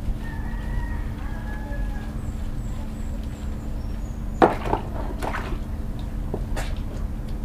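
A wet small dog being scrubbed and lathered in a plastic basin of water: soft rubbing and sloshing, then a few sharp splashes a little past halfway, the first the loudest. A steady low hum runs underneath.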